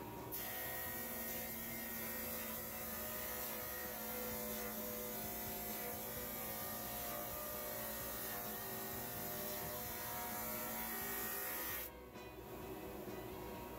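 Grizzly G0458Z drum sander taking a light pass on an end-grain cutting board fed through on its conveyor: a steady hiss of sanding over the hum of the drum and motor. The sound cuts off sharply near the end.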